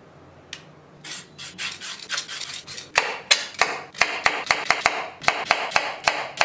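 A few rasping strokes as the cucumber is peeled, then a kitchen knife slicing the peeled cucumber into rounds. Each cut ends in a sharp tap of the blade on the bamboo chopping board, about three to four a second.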